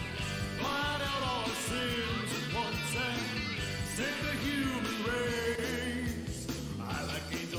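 Rock-and-roll song with a lead voice singing over a band backing track.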